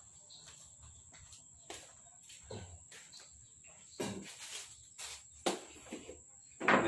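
Sparse light knocks and clicks of small tools and parts being picked up and set down on a wooden workbench, a few seconds apart, over a faint steady high-pitched whine.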